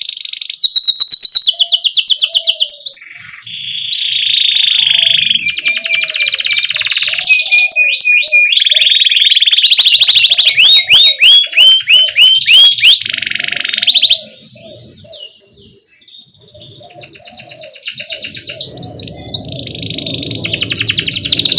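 Domestic canary singing a long song made of fast rolling trills and chirps, with quick rising sweeps and held notes. The song eases off about two-thirds of the way through, then picks up again.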